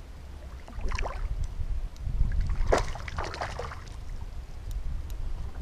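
Water splashing around a fishing kayak: one short splash about a second in and a longer, rougher one a little before the middle, over a steady low rumble.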